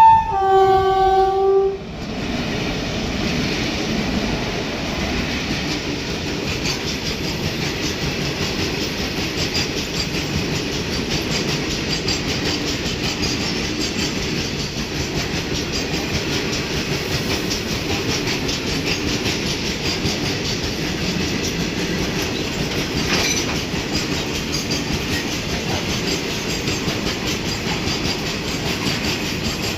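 Indian Railways train horn sounding for about two seconds, its pitch dropping partway through, then the train running past at speed, its wheels clattering steadily over the rail joints.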